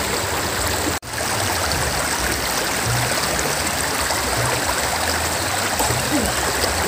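Shallow river flowing and rippling over rocks: a steady rush of water that cuts out for a split second about a second in.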